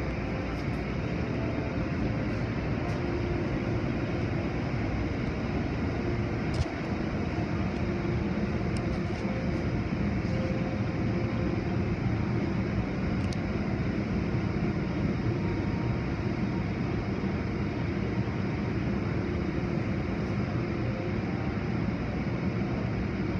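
Automatic tunnel car wash running: water spray and spinning cloth brushes over machinery hum, a steady rushing noise heard through the viewing window's glass.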